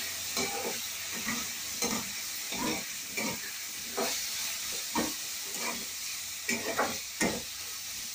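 Metal spatula scraping and turning cubed raw plantain in a kadai of hot oil, over a steady frying sizzle. The scrapes come irregularly, about one or two a second.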